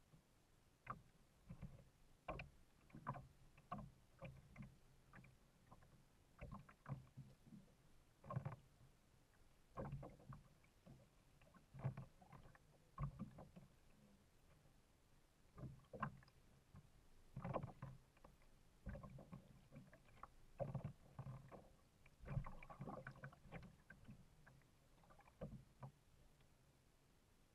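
Faint water splashes and soft knocks against a paddled kayak's hull, coming irregularly about a second apart as the boat moves through choppy water, thinning out near the end.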